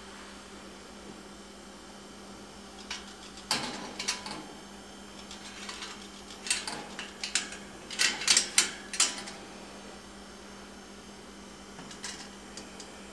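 Light metallic clinks and rattles of a wire animal cage in several short clusters, loudest about eight to nine seconds in, over a steady electrical hum.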